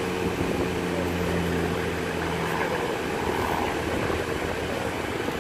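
A steady engine drone, a low hum with a few fixed pitches over a broad hiss, that eases off about halfway through.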